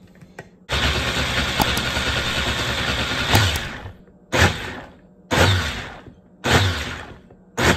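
Countertop blender blending a thick fruit-and-milk smoothie: it starts about a second in and runs steadily for about three seconds, then is switched on in short pulses about once a second.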